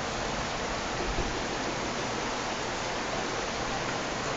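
Steady, even rush of heavy rain and floodwater.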